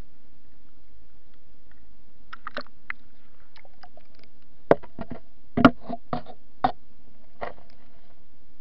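Underwater sound in a rock pool: a steady low hum with a run of irregular sharp clicks and knocks, most between about two and a half and seven and a half seconds in, two of them much louder near the middle.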